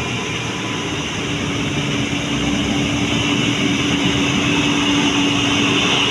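A tour bus's diesel engine labouring under heavy load on a steep climb, a steady note that grows louder from about two seconds in as the bus comes nearer.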